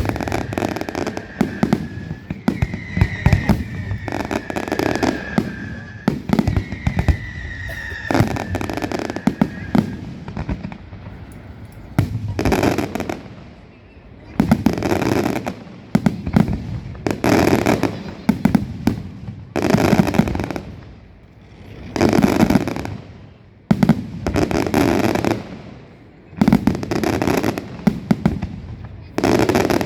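Fireworks display. For the first ten seconds there is dense crackling with three falling whistles; after that, loud single shell bursts go off about every two seconds, each dying away briefly.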